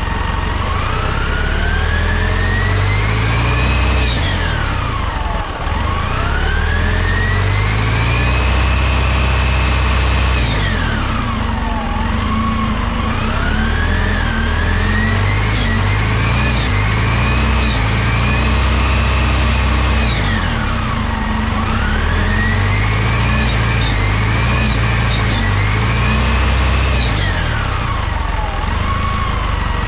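A 1998 New Flyer C40LF bus engine is revved up and let fall back to idle about four times, heard at the open rear engine door. Each rev climbs over two to three seconds, holds briefly, then drops, with a whine that rises and falls with engine speed.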